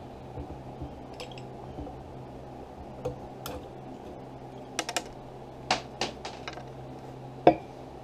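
Scattered light clicks and metal knocks as the cylinder head is worked off a Minarelli V1 moped engine by hand, with one sharper knock near the end. A low steady hum runs underneath.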